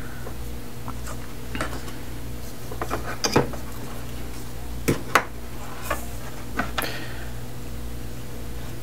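Light, scattered clicks and taps of metal tweezers against a model railway platform and its thin wires as the wires are pulled down along the posts, the sharpest two about five seconds in, over a steady low hum.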